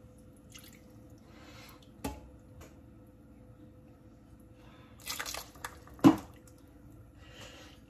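Water poured from a glass bowl into a saucepan of paste, trickling and dripping, with a splashy stretch about five seconds in. A click about two seconds in and a sharp knock, the loudest sound, just after the splash.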